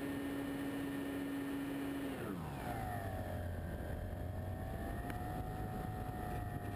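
Engine and propeller of a radio-controlled scale de Havilland Tiger Moth, heard from on board in flight, running at a steady pitch, then throttled back about two seconds in: the pitch falls and it settles into a lower, steady run, with air rushing past.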